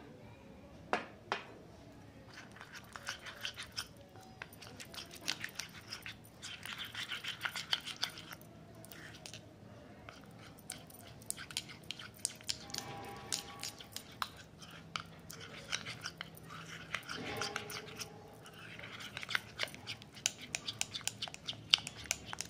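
Metal spoon stirring a thick gram-flour paste in a glass bowl: irregular wet clicks and scrapes against the glass, coming in short spells.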